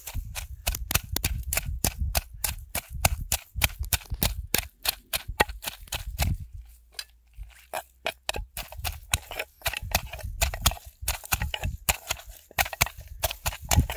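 Rapid, irregular sharp knocks, several a second, with dull thuds underneath, easing off briefly about halfway through: repeated striking impacts during food preparation.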